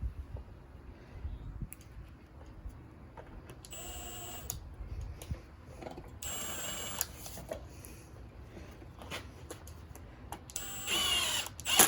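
Cordless drill/driver running in three short bursts of about a second each, driving screws back into a Stihl KM110R trimmer during reassembly. The last burst rises and falls in pitch and ends in a loud click. Small clicks and taps of parts being handled come in between.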